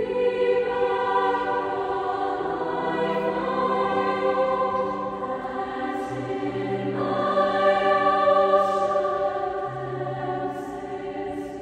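Large high-school choir singing held chords in a large church. The chord shifts about three seconds in and again near seven seconds, and the sound swells to its loudest shortly after the second change before easing off.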